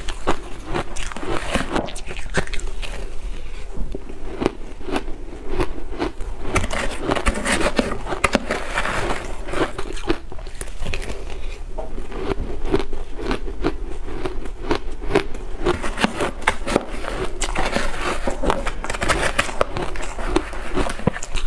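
Shaved blender ice being bitten and chewed close to the microphone, a steady run of crisp crunches and crackles, with a metal spoon scooping and scraping the ice in a plastic cup.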